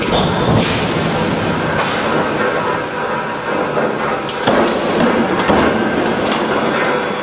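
Forging-plant machinery running: a continuous dense clatter and hum, with metallic knocks and short hissing bursts. The loudest knocks come about four and a half and five and a half seconds in.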